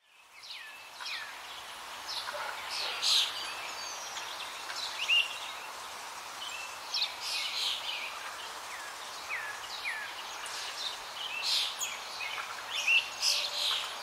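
Several wild birds chirping and calling together, short chirps and quick downward whistles overlapping irregularly, over a steady background hiss.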